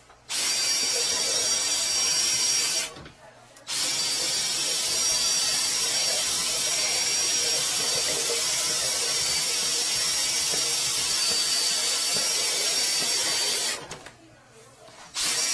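Power drill spinning a flexible drain-cleaning shaft to clear a clogged drain. It runs in spells: about two and a half seconds, a short stop, about ten seconds, another stop, then it starts again just before the end.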